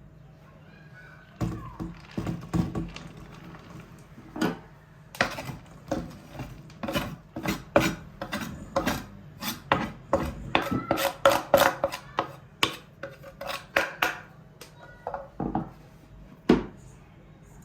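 Dishes and metal utensils clinking and clattering in a kitchen: a quick, irregular run of sharp knocks and clinks, some ringing briefly, busiest through the middle.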